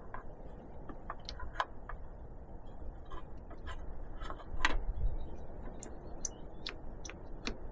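Irregular light clicks and taps of metal and plastic parts and tools being handled during hands-on work on a vehicle's front end, with one louder knock about four and a half seconds in.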